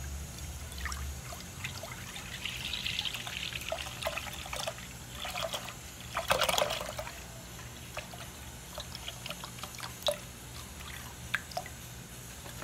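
Milk poured in a stream into a stainless steel pot, trickling and splashing as it fills, with scattered small drips and bubble pops and a louder splash about six seconds in.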